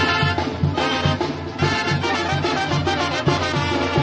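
Lively Latin brass-band music, horns playing over a steady drum beat.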